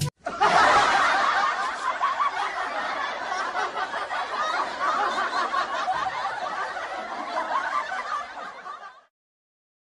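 Laughter from many people at once, starting suddenly and fading away near the end.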